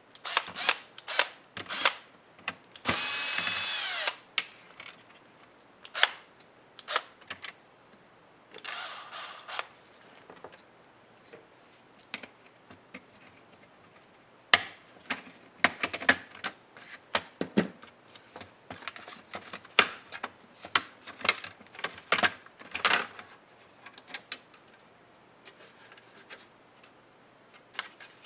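Small electric screwdriver whirring for about a second and a half while backing out a laptop screw, then a shorter, fainter run a few seconds later. Between the runs come many short clicks and taps of tools and plastic parts being handled.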